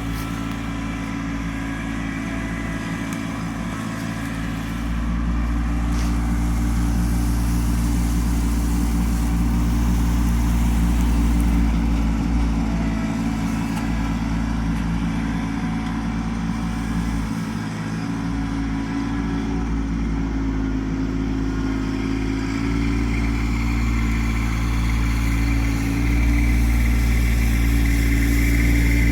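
Kubota LX2610 compact tractor's three-cylinder diesel engine running steadily under throttle, getting louder about five seconds in and again near the end.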